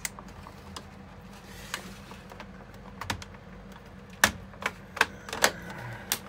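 Plastic dehumidifier housing parts being handled and pressed together by hand: scattered sharp plastic clicks and knocks, coming thicker from about four seconds in.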